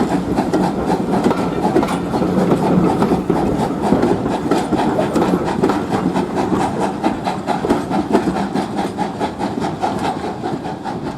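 Heritage railway train running past with a rapid, steady clatter of wheels over the track, easing off a little near the end.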